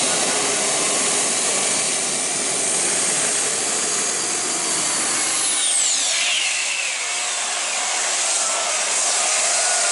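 Four-turbine mini pulling tractor running at full power under load, a loud, steady turbine roar and hiss. About six seconds in, a high whine falls steeply in pitch.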